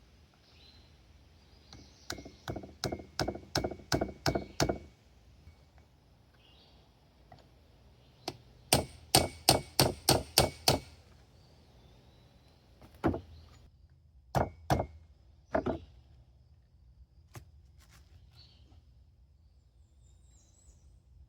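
Hammer tapping on an old seal ring laid over a new seal, driving the new seal into an excavator travel motor housing. There are two runs of quick taps, about three or four a second, then a few single taps further apart, each with a short metallic ring.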